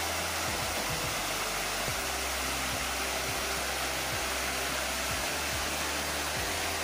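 Steady rush of a small waterfall spilling over rock ledges into a shallow pool.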